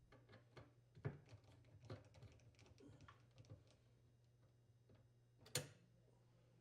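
Faint, scattered clicks and light taps of hand work on a dishwasher's open door and mounting bracket screws, with one sharper click about five and a half seconds in. The rest is near silence.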